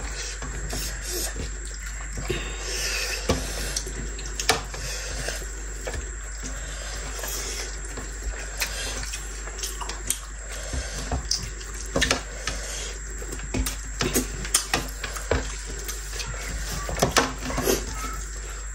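Close-miked eating sounds of rice and kinema eaten by hand: wet chewing and mouth sounds, with irregular sharp clicks and squishes from fingers mixing rice on the plates.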